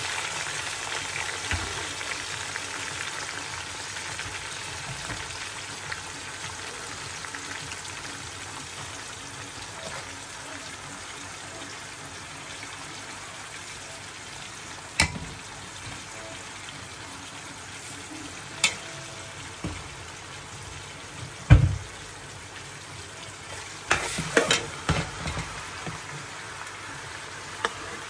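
Onion, ginger and whole spices (bay leaves, cinnamon, fenugreek) frying in hot oil in a pot, a steady sizzle that eases slightly. A few sharp knocks, with a short bout of stirring and knocking near the end.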